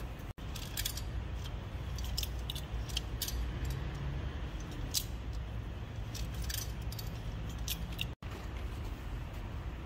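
Light, irregular metallic clinks and scrapes as a truck axle spindle is turned out of its threaded bushing, by hand and then with locking pliers, over a steady low rumble.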